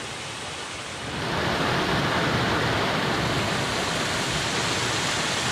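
Creek water rushing, a steady wash that grows louder about a second in.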